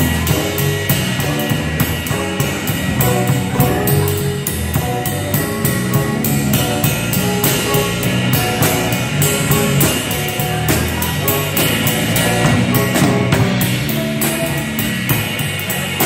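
Jazz band playing an instrumental on drum kit and guitar, with steady cymbal strokes about four to five times a second.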